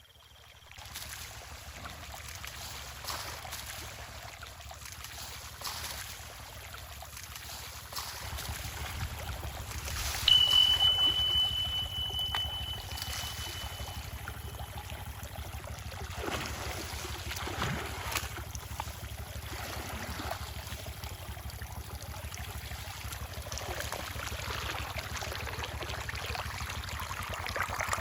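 Stream water running and trickling, a steady rushing wash. About ten seconds in, a single high steady tone starts abruptly and fades out after about five seconds.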